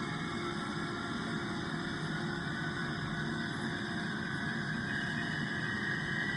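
Steady drone of an airliner's engines as heard in the cabin: an even rushing hiss with a low hum and several held tones, unchanging throughout.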